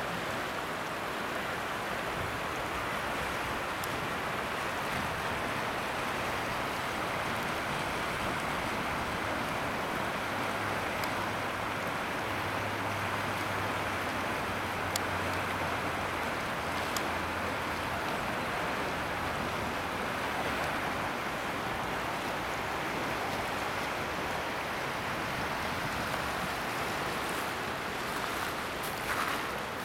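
River water rushing steadily through rocky shallows and over a low weir.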